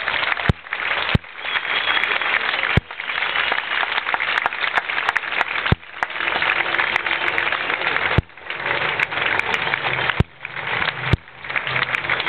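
Crowd applauding steadily. Several sharp clicks break in, each with a brief dropout of the sound.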